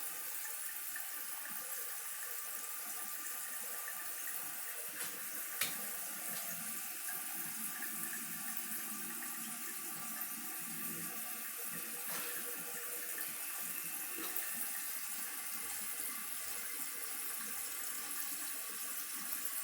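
Water running steadily, an even hiss, with a single small knock about five and a half seconds in.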